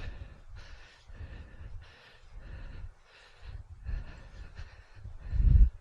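Wind buffeting a helmet-mounted microphone, with a person breathing hard and walking. The rumble comes in uneven pulses and peaks in a strong gust about five and a half seconds in.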